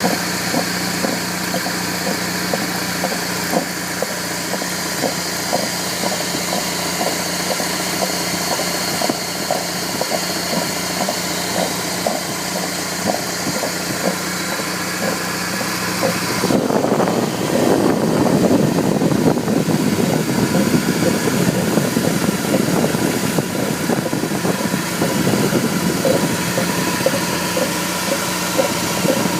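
BMW M43 B19 four-cylinder engine idling with a regular, repeating knocking noise ('go, go, go') that new belt tensioner and tension-roller parts have not cured; the owner suspects the pulley area. About halfway through, the sound grows louder and rougher.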